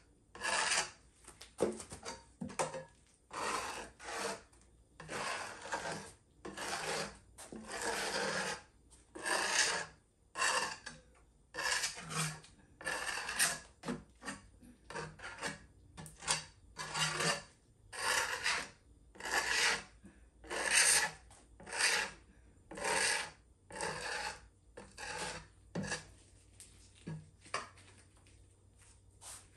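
A hand scraper dragged in repeated short strokes over an epoxy resin table top, a rasping scrape roughly once a second, with the strokes thinning out and getting fainter near the end.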